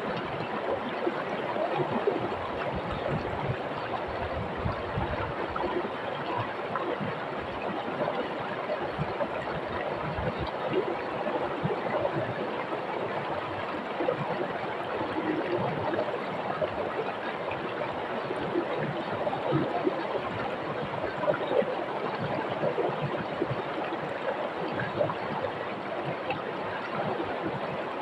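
Shallow rocky river rushing and gurgling over stones, a steady flow with small splashes throughout.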